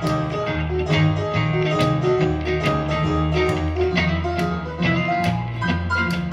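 Instrumental break in a country-style band song: plucked guitar over a bass line with a steady beat.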